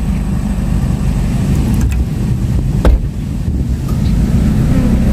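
A steady low rumble, with one sharp click about three seconds in.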